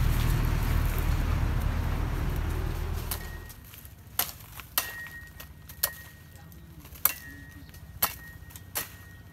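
A loud low rumble for about the first three seconds. Then a cleaver chops into the stalks of a bunch of green coconuts: six sharp chops at uneven intervals, roughly a second apart.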